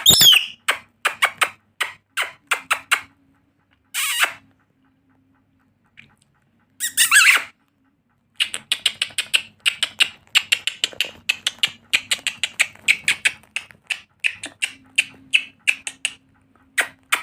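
Pet parrot making runs of short, sharp, squeaky chirps, coming several a second in the second half, with two louder, harsher squawks about four and seven seconds in.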